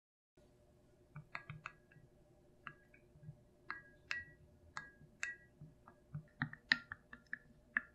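A thin wooden stirring stick clinking against the sides of a glass measuring cup as it stirs milk with melted gelatin, each tap giving a short glassy ring. The taps come irregularly, one or two a second, starting about a second in and coming faster near the end.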